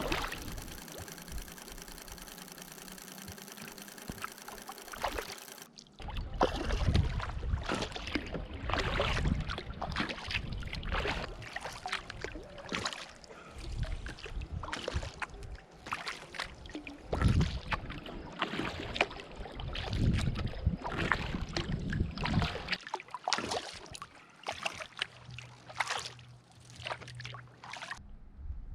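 Kayak paddle strokes dipping and splashing in lake water, repeated irregularly about once a second, with low rumble beneath. This follows a steady humming sound in the first several seconds that stops suddenly.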